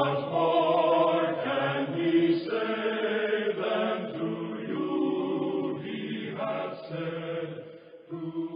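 Sung theme music: voices holding long, slowly changing notes in a chant-like choral style, fading near the end.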